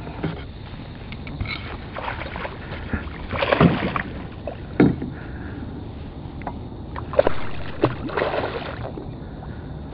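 A hooked speckled trout thrashing and splashing at the surface beside a small skiff while being reeled in. The splashes come in bursts, about a third of the way in, near the middle, and several more towards the end.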